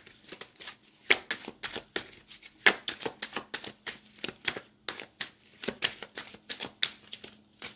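Tarot cards being shuffled by hand: an irregular run of sharp card snaps and flicks, several a second, over a faint steady hum.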